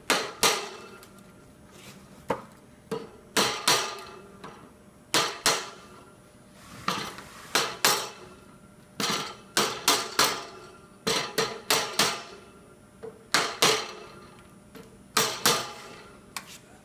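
A mallet tapping the top of a tilted display tower, sharp knocks in quick pairs and triplets repeating every second or two, driving the hubs and wire strips fully together.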